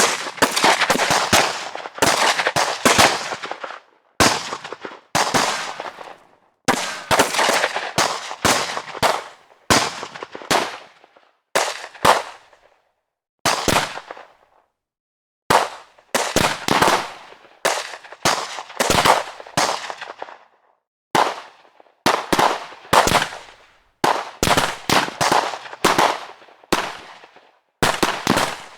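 A series of gunshot sound effects: single shots and rapid strings of shots, each with a short echoing tail, with brief silent gaps between groups.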